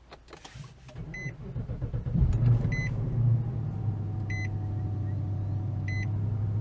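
Infiniti FX50's 5.0-litre V8 cranking and catching about two seconds in, revving up briefly, then settling into a steady idle. A dashboard warning chime beeps four times, about a second and a half apart, over a few quiet clicks at the start.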